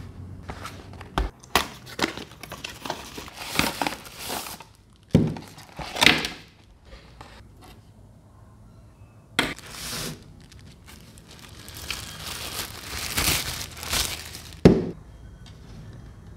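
Packaging of a handheld mini fan being unpacked: paper wrapping crinkles and the cardboard box and parts are handled in irregular rustles, with scattered knocks and a sharp thump near the end.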